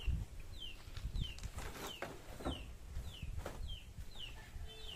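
A chick peeping over and over, a short falling peep roughly every half second, with a few light plastic rustles and knocks from bottles and bags being handled.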